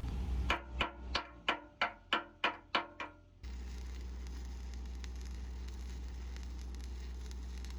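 A quick series of about ten ringing knocks, coming slightly faster toward the end, followed by a steady low hum.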